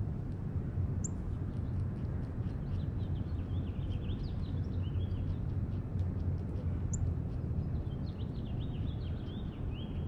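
Small birds chirping in quick runs of short notes, one run through the middle and another near the end, with two sharp higher notes, over a steady low background rumble.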